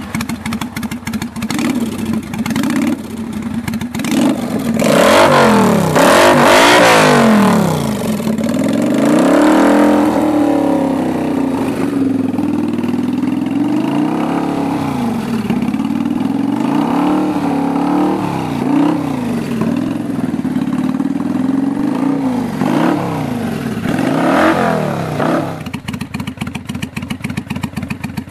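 Kawasaki Vulcan 800 V-twin running through aftermarket Vance & Hines exhaust pipes, on a re-jetted carburettor with a high-flow K&N air filter. It is blipped repeatedly by hand, the pitch rising and falling with each rev, then settles back to an even idle near the end.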